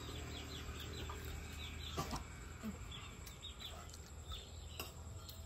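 Chickens clucking faintly, with many short, high, falling calls repeating over a steady low rumble.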